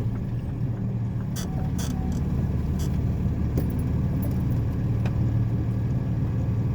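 Flatbed truck's engine running steadily while driving slowly on a dirt road, heard from inside the cab, with a few light clicks and rattles scattered through.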